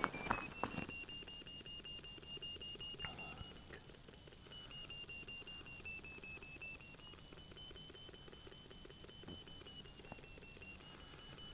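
A handheld terrier locator receiver giving a continuous high electronic tone, its pitch drifting slowly up and down as it is swept over the earth to find the transmitter collar of the dog working underground. A few knocks sound in the first second.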